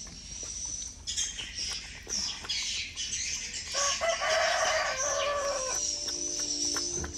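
Domestic chickens: a rooster crowing once, about four seconds in, with clucking calls around it, over a steady high-pitched whine.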